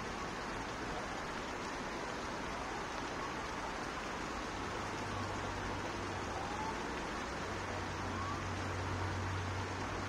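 Outdoor park ambience: a steady rushing noise, with a low hum joining about halfway through and a few faint short chirps.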